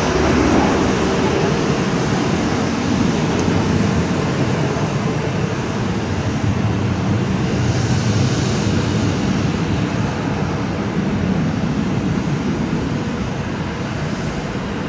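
Airbus A320 jet engines at takeoff thrust as the airliner climbs away: a steady, loud rushing jet noise that grows slightly fainter near the end.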